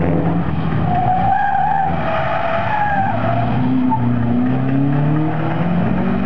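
A car's tyres squealing through a tight turn for about two seconds, starting about a second in, over the engine. Then the engine note climbs as the car accelerates out of the turn.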